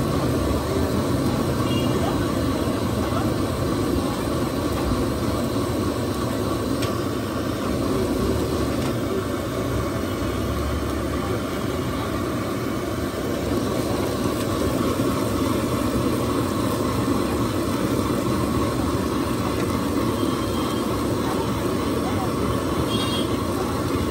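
Steady roar of a gas burner under a frying pan, with voices in the background.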